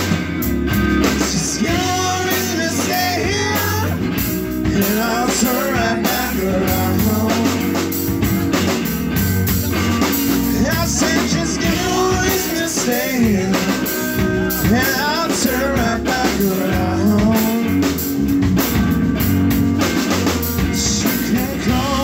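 A live rock band plays an instrumental blues break: electric guitars and a drum kit, with a lead line of bending notes over a steady low end.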